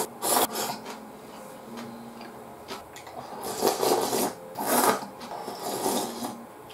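Slurping ramen: a couple of noodle slurps at the start, then a run of slurps of broth from the lifted bowl beginning about three and a half seconds in.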